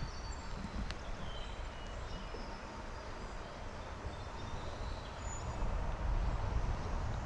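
Steady rush of flowing creek water, with low wind rumble on the microphone that grows stronger about five seconds in. A few brief high bird chirps.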